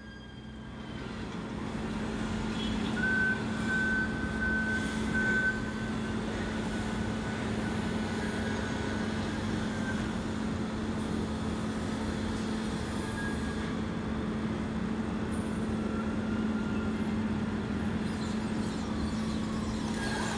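Steady drone of heavy machinery engines with a constant low hum, and a faint thin whine for a few seconds early on.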